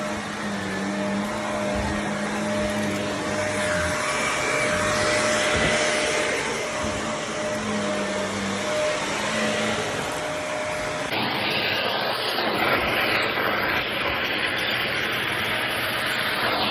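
Shark vacuum cleaner running steadily, a dense rushing noise with a steady hum and whine. About eleven seconds in the sound changes abruptly to a rougher, hissier rush.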